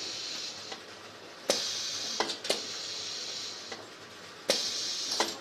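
Automatic induction hardening machine for drill bits cycling: sharp mechanical clacks, each of two cycles starting with a clack and a high hiss that lasts about two seconds, about three seconds apart.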